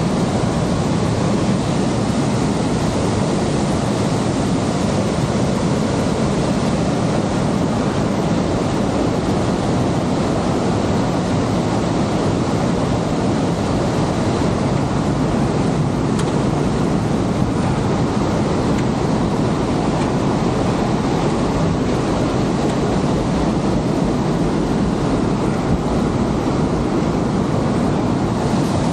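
Aira Force waterfall in spate after heavy rain: a loud, steady rush of falling water.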